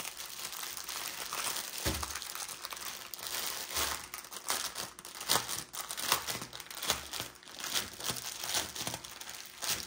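Plastic packaging of a diamond painting kit's drill bags crinkling and rustling in irregular bursts as the wrapped bundle is handled and opened.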